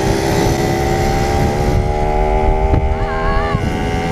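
Small 50 cc motorcycle engine running at a steady high speed, its pitch creeping slowly upward, with heavy wind rumble on the microphone.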